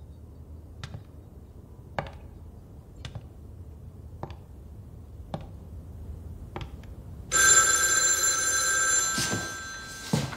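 Old brass telephone's bell ringing in one long ring of about three seconds, starting about seven seconds in. Before it come faint, sharp ticks about once a second.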